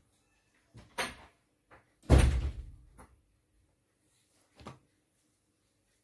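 A couple of sharp knocks of something hard, the loudest just after two seconds in and dying away over about a second, followed by two faint taps.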